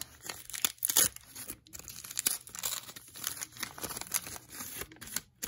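Paper wrapper of a vintage baseball card pack being torn open and peeled off the cards, crackling and crinkling in quick irregular bursts, loudest about a second in.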